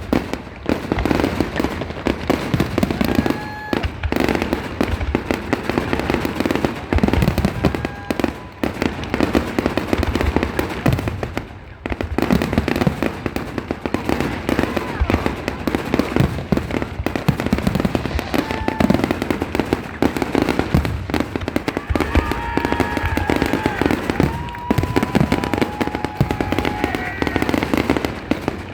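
Fireworks display: aerial shells bursting in quick, continuous succession with booms and crackle, and a few brief high tones near the end.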